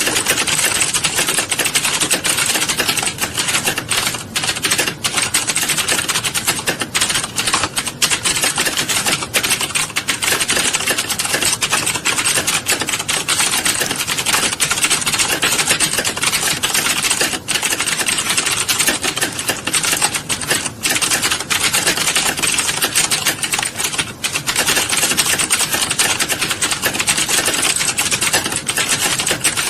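Fast, continuous typing on a keyboard: a dense, unbroken run of key clicks with no pauses.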